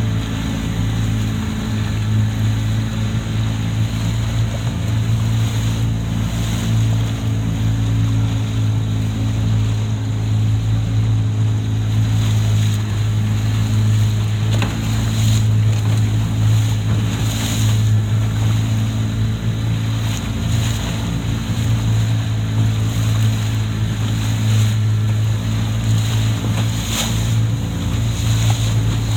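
A fishing boat's engine runs at a steady drone, with wind buffeting the microphone and water rushing past the hull.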